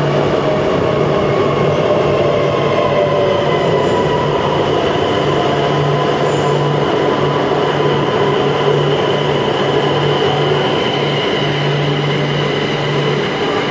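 Electric passenger train pulling into the platform and slowing toward a stop. It makes a steady rumble and hum, with high squealing tones from the wheels and brakes.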